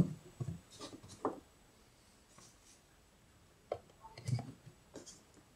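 Faint clicks and handling noises as a handheld digital multimeter is plugged in and set up: a few light clicks in the first second and a half, a quiet stretch, then more clicks and a soft bump about four seconds in.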